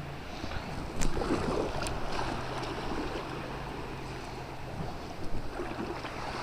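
River water rushing and splashing around a kayak, with a sharp knock about a second in.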